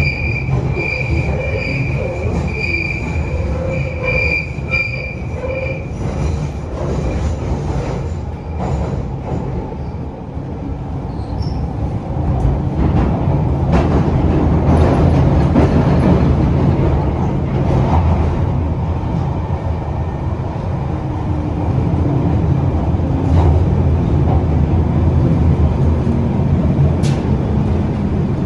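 London Underground 1972 Tube Stock train running through a tunnel. Its wheels squeal with a pulsing high tone for the first few seconds, then it settles into a steady rumble with scattered clicks over the rail joints. Near the end a low motor whine falls in pitch.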